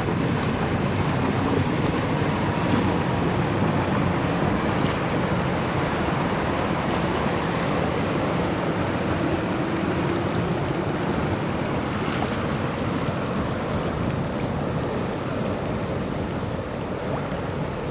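Strong wind buffeting the microphone over choppy water lapping against an inflatable kayak, a steady rushing noise throughout.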